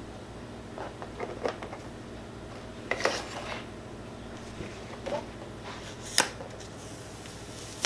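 A plastic Cricut cutting mat being slid out of a Cricut Maker and handled: light clicks, a sliding rustle about three seconds in, and a sharp clack about six seconds in.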